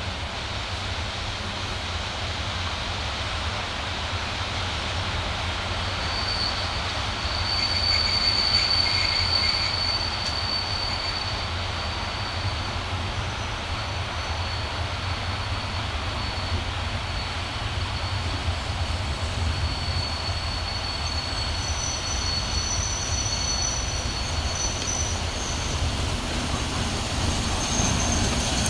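Electric locomotive and its train approaching along a station track, wheels squealing: a steady rumble with a thin high-pitched squeal held from about six seconds in, joined near the end by a second, higher squeal as the train draws close.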